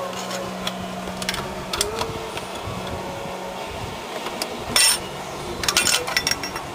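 Metal tool clicks and scrapes as snap-ring pliers are worked into the two holes of a VW 2.0 L engine's timing belt tensioner pulley, with a louder short scrape just under five seconds in and a quick run of clicks soon after.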